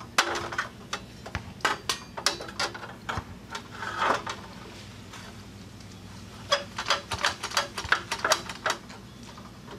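A steel lawn mower blade being handled: irregular short metallic clicks and scrapes, with a quick run of clicks near the end.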